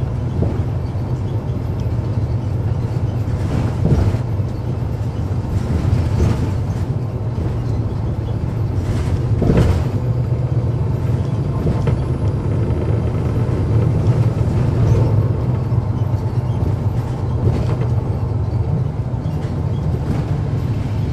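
Cummins ISL9 diesel engine of a NABI 40-ft suburban transit bus running steadily, heard from inside the cabin as a deep drone, with a few knocks and rattles, the clearest about four seconds and ten seconds in.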